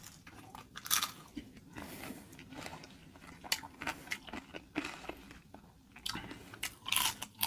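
Close-miked biting and chewing of a crispy Jack in the Box taco, with irregular crisp crunches from the fried shell; louder crunches about a second in and near the end.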